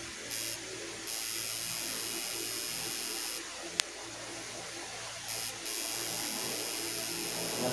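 Tattoo machine buzzing in on-and-off runs: a brief burst, a run of a couple of seconds, a sharp click, then another brief burst and a longer run.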